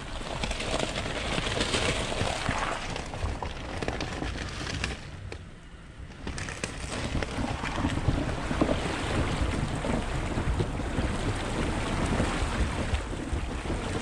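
Suzuki Grand Vitara driving through a creek crossing: engine running with water splashing, and wind buffeting the microphone. The noise drops away briefly about five seconds in, then comes back.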